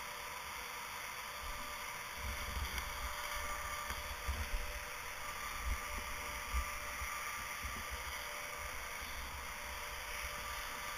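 Wind buffeting on a GoPro's microphone over a steady hiss, with low rumbling gusts strongest between about two and seven seconds in.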